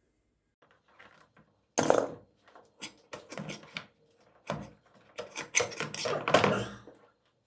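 Hand tools and scooter parts being handled during repair work: a run of irregular knocks, clatters and scraping, loudest about two seconds in and again near six seconds.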